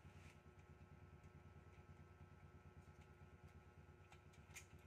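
Near silence: a faint steady low hum, with a few light clicks near the end as hands work on a copier fuser unit.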